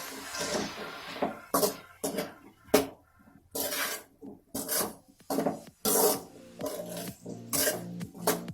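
Spatula stirring and scraping chopped tomatoes and vegetables around a frying pan in irregular strokes, roughly two a second. A frying sizzle dies away in the first second or so.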